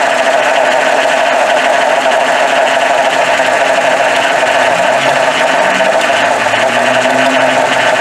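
Nissan four-cylinder twin-cam 16-valve engine idling rough and shaking, misfiring so badly that it runs on about two cylinders. The number two spark plug wire is pulled for a cylinder kill test, and the engine note stays steady.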